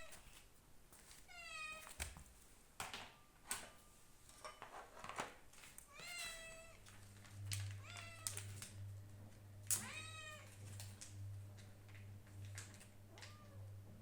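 Domestic cat meowing several times, short calls that fall in pitch and come a few seconds apart: a hungry cat demanding breakfast. A low steady hum sets in underneath about seven seconds in, with faint small clicks throughout.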